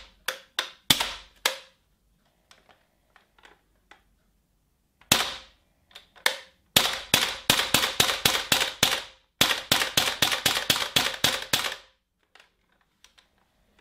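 Gas blowback airsoft rifle firing: a home-built HK XM8 on a WE G36 base. Four single cracks come in the first second and a half, two more follow after a pause, then two rapid strings of about five shots a second. It is a conversion that, by the owner's account, cycles properly only at some angles of the magazine.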